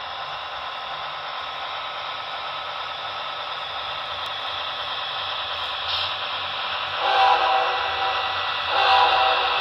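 Sound-equipped model diesel locomotive played through its small onboard speaker: a steady engine hum with hiss, then two horn blasts near the end.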